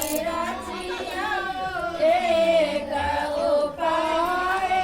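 Women singing a devotional song, with long, wavering held notes.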